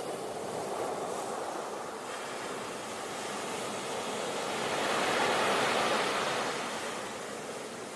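Ocean waves breaking and washing on the shore, a steady rush of surf that swells to a peak about five seconds in and then eases.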